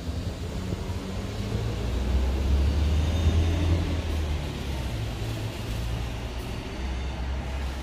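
Low, steady rumble of a motor vehicle's engine, swelling to its loudest a couple of seconds in and easing off again.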